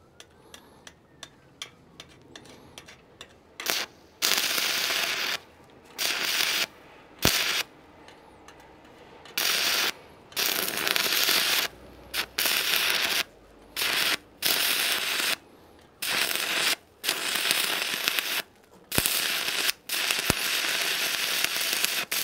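Stick (arc) welding with a 3.2 mm electrode run off a 36-volt car-battery bank, drawing about 150 to 180 amps. A few light taps and scratches strike the arc, then it crackles and sizzles in repeated stop-start runs of a second or two, breaking off between them.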